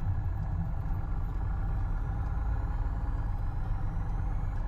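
Cessna 172H's six-cylinder Continental O-300 engine running steadily at low power, heard from inside the cockpit, as the plane rolls out after landing.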